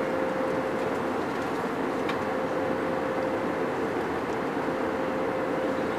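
Steady jet airliner cabin noise in flight: an even rushing of engines and airflow with a steady droning tone held underneath.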